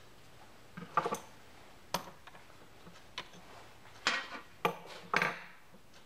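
Metal parts of a dial-indicator setup on a Craftsman/Atlas 618 lathe being handled: about six sharp metallic clinks and knocks, the loudest about a second in.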